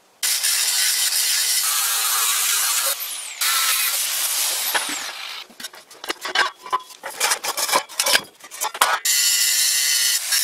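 Angle grinder grinding steel square tubing, stripping the coating and old welds off reused cart legs: a steady harsh grinding hiss in long stretches, broken into short choppy bursts in the middle.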